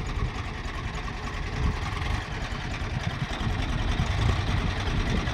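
Swaraj 744 XT tractor's three-cylinder diesel engine running at low revs under load, the driverless tractor pulling itself up a sandy slope in third low gear.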